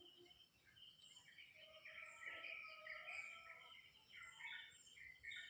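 Faint birdsong: several birds giving short chirps and trills that overlap, busiest in the middle, over a steady thin high-pitched hum.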